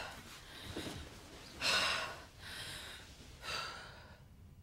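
A woman breathing hard, with three heavy breaths or sighs, the loudest about two seconds in.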